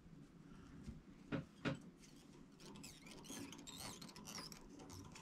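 Tying thread squeaking faintly as it is wrapped under tension from a bobbin to tie down folded flash on a bucktail jig. Two soft clicks come about a second and a half in, then a run of wavering high squeaks.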